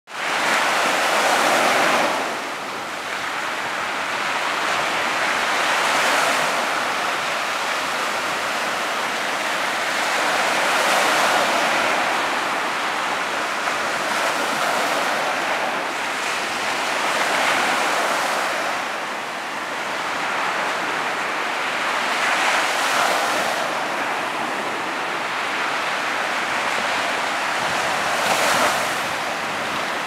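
Small Gulf of Mexico waves breaking and washing up a sand beach, the surf swelling every four to six seconds.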